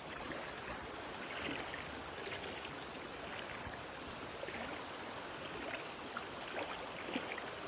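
Creek water running steadily, with small irregular splashes and trickles.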